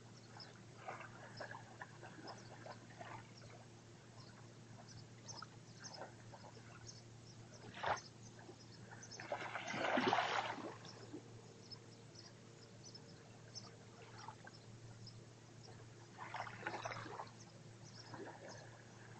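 Small waves lapping on a sandy, pebbly shore: one wave washes up and breaks about halfway through, the loudest moment, with a softer wash near the end and faint trickling ticks between.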